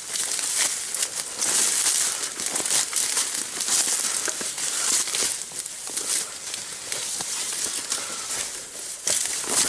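Footsteps rustling and crunching through dry forest undergrowth and leaf litter, with small twig snaps, as a person walks.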